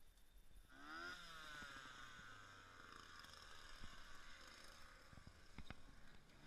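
A faint engine comes in about a second in, its pitch falling slowly and then settling to a steady run, like a vehicle slowing down. A couple of sharp knocks come near the end.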